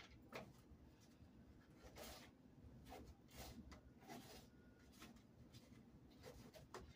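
Faint, irregular taps and scrapes of a knife slicing red bell pepper on a paper plate.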